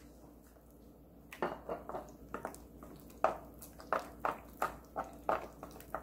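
Wooden spoon stirring thick batter with minced pork in a glass bowl: a run of short wet strokes, about two or three a second, starting about a second and a half in.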